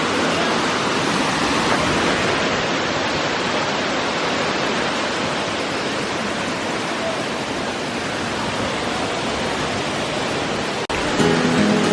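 Small waterfall's water rushing steadily. About a second before the end the rushing cuts off and guitar music begins.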